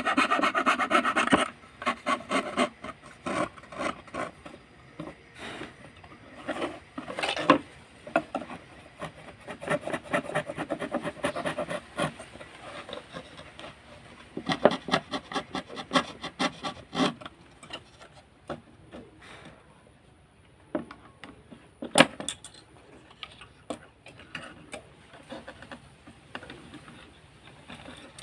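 Manual fretsaw cutting wood by hand: rapid rasping strokes, continuous for the first second or so, then in short bursts with pauses between them. There is a single sharp tap about 22 seconds in.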